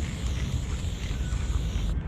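Aerosol spray-paint can hissing steadily, stopping abruptly at the very end, over a low rumble of wind on the microphone.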